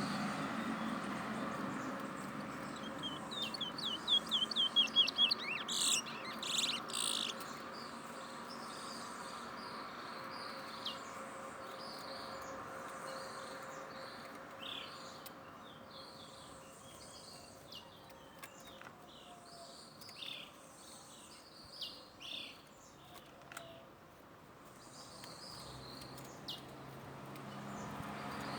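Towa-towa songbird singing: a fast run of short high chirps about three seconds in, a few louder notes around five to seven seconds, then scattered short chirps over a faint steady hum.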